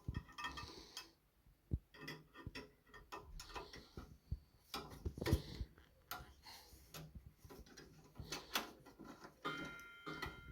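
Scattered light metallic clicks and ticks of a hex key working on the Allen bolts that hold a table saw's riving knife and its retaining plate. A faint thin high tone sounds near the end.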